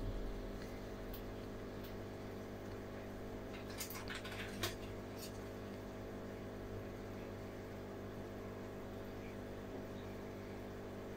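Steady hum of aquarium equipment with a faint hiss. A few small clicks come about four to five seconds in, the sharpest near five seconds.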